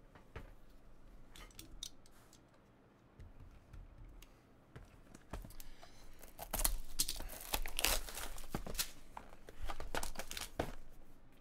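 Plastic wrapping on a cardboard trading-card box being slit with a small hand cutter and torn open, with crinkling and tearing. A few faint clicks come first, and the tearing and crinkling grow dense about halfway in.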